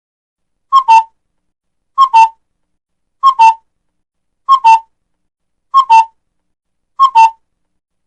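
A bird call, used as a looped sound effect, repeating six times about every 1.25 s. Each call is a quick pair of whistled notes, the second slightly lower.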